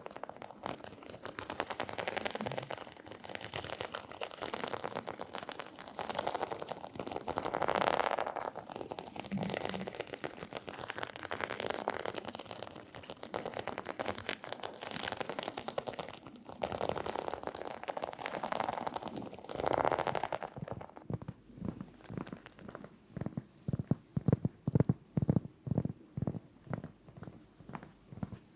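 ASMR fingertip and fingernail triggers: rapid tapping and scratching on an object in dense, swelling runs, changing about two-thirds of the way through to slower, separate, louder taps.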